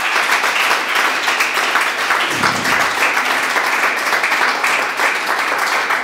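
An audience applauding: many people clapping at once in a dense, even patter.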